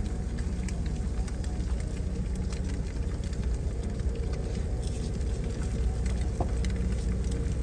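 Steady low hum of an idling engine, most likely the semi truck's, with the faint crackle of an egg frying in a nonstick skillet.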